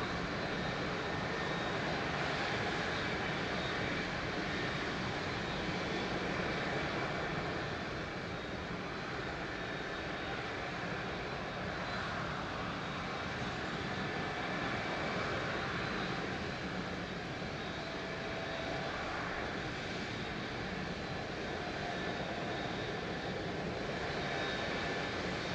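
Boeing 777-200ER's twin Rolls-Royce Trent 800 turbofans at low taxi thrust: a steady jet engine rumble with a faint high whine, heard from a distance.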